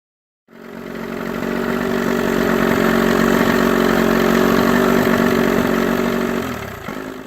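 Mid-1980s Johnson 35 two-stroke outboard motor running steadily, its sound swelling over the first couple of seconds, then dropping in pitch and dying away near the end.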